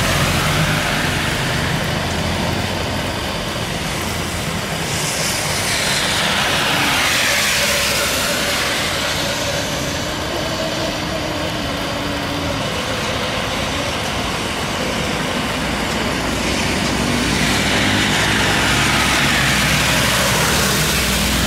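A jet airliner approaching to land in heavy rain: a steady wash of rain and engine noise, with the engines' low drone growing stronger near the end. About five seconds in and again near the end, a whoosh sweeps down from high to low as something passes.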